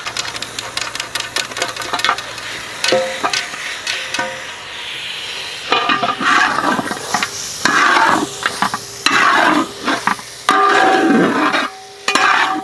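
Raw chicken pieces going into a hot metal pan (uruli) of fried masala and sizzling. From about six seconds in, a metal ladle stirs and scrapes against the pan in repeated strokes.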